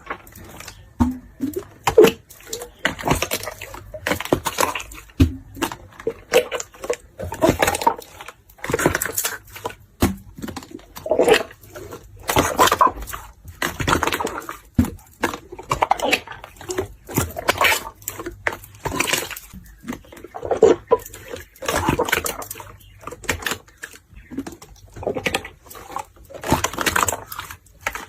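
Clear 'fake water' slime being squished and poked by hand, giving irregular wet, sticky pops and crackles.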